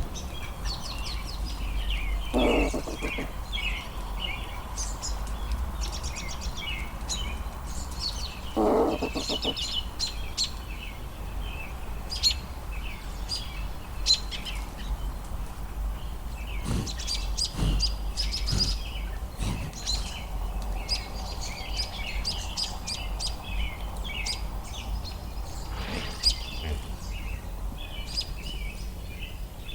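Songbirds chirping and trilling all through, with two short low rattles about two seconds and nine seconds in, over a steady low rumble.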